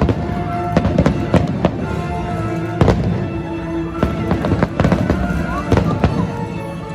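Fireworks bursting in an irregular run of sharp bangs, several close together about a second in and again around four to six seconds in, over background music.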